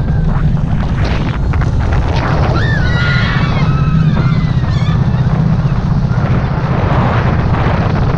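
Vekoma mine train roller coaster running at speed: a steady low rumble of the train on its track, with wind buffeting the microphone. Riders call out in high, wavering voices between about two and five seconds in.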